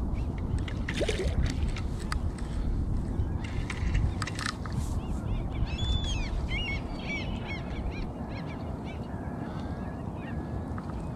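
Wind rumbling on the microphone, with a few short clicks in the first half. About six seconds in comes a quick run of short bird calls, followed by a few fainter whistles.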